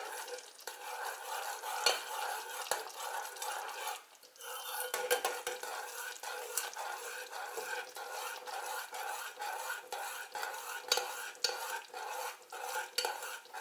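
A spoon stirring a thick, warm mixture of melted butter, pork fat, honey and aloe in a pot as cocoa powder is mixed in. The spoon clicks and scrapes against the pot continuously, pausing briefly about four seconds in.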